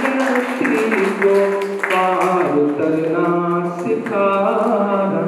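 A man singing Urdu verse into a handheld microphone in long, drawn-out notes that waver in pitch.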